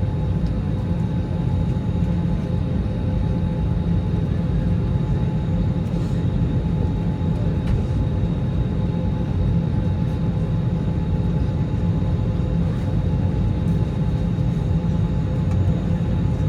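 Steady cabin rumble inside an Airbus A321neo airliner at the gate, with a few faint steady whining tones over a deep, even drone.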